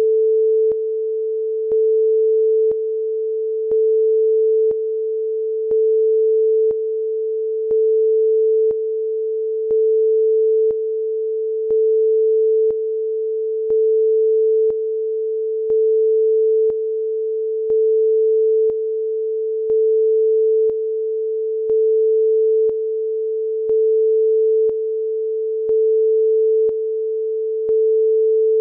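Synthetic sine-wave test tone, one steady mid-pitched note. Its level alternates between louder and softer about every second, with a faint click at each step.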